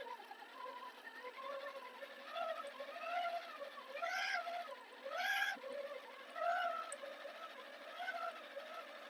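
Redcat Scout RC crawler's electric motor and drivetrain whining, the pitch rising and falling in repeated short swells as the throttle is worked on and off, loudest a little past the middle.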